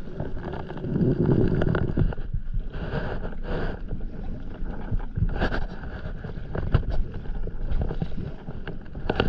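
Stand-up paddleboard paddle dipping and pulling through the water, with a few louder splashes, over wind rumbling on the microphone.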